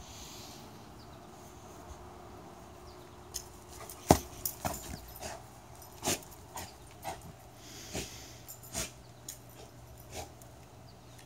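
Dog nosing and mouthing a rubber ball across the grass: a string of irregular sharp knocks and clicks, the loudest about four seconds in, over a faint steady hum.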